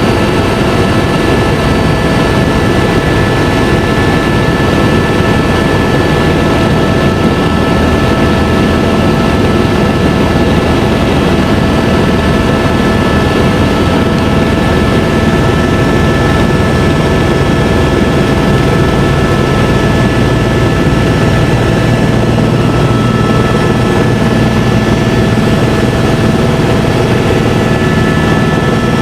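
Helicopter in flight, its turbine and rotor running steadily, with a constant high whine over a dense low rumble.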